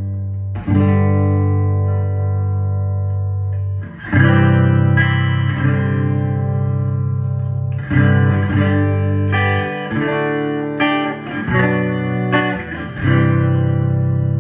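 Danelectro Convertible guitar playing strummed chords and letting them ring, with a new chord every few seconds and quicker chord changes near the end.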